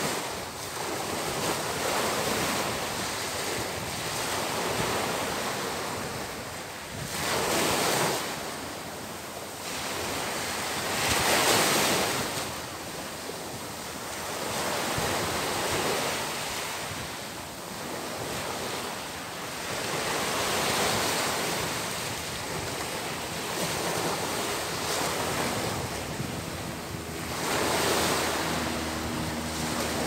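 Small surf breaking and washing up a sandy beach, a continuous rush of water that swells and fades as each wave breaks, with a few louder breakers.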